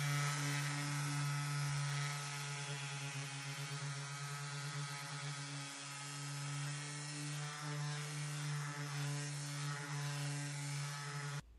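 Makita random orbit sander running, sanding down hardened Bondo body filler on plywood: a steady motor hum with a hiss from the pad on the surface, cutting off abruptly near the end.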